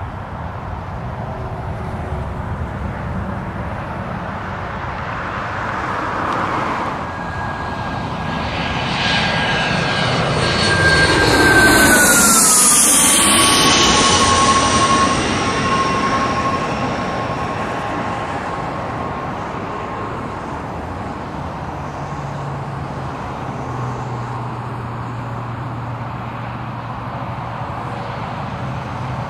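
Small business jet's turbine engines passing close by on departure. The whine grows louder, drops sharply in pitch as the jet goes past about halfway through, then fades. A steady low hum follows near the end.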